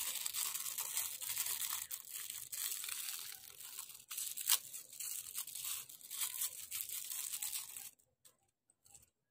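Plastic packaging crinkling and tearing as it is handled and pulled open, a dense crackle with sharp snaps, stopping about eight seconds in.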